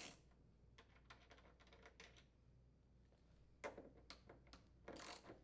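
Faint clicking of a ratchet and 10mm socket turning out the bolts of a refrigerator's lower door hinge, a quick run of small clicks, then a few brief scrapes of metal parts being handled.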